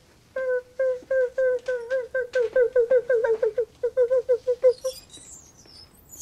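Squeaky trolley wheel squealing in a quickening rhythm as the trolley is pushed along, each squeak dipping slightly in pitch. The squeaks stop just before five seconds in, and faint high chirps follow.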